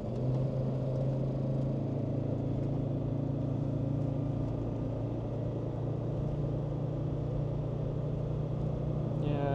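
Land Rover Discovery 2 Td5's five-cylinder turbodiesel running steadily while the vehicle drives along, with road noise. The engine is freshly remapped, and the driver feels it is not pulling as hard as it should.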